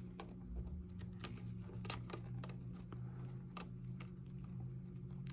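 Light, irregular clicks and taps of small plastic parts as an odometer wheel assembly is worked into a gauge cluster and its gear is lined up, over a steady low hum.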